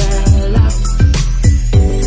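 Background music with a steady beat of deep kick drums, about two a second, under held chords.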